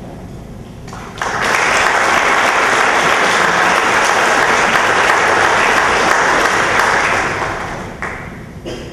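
Audience applauding, starting about a second in, holding steady and dying away near the end.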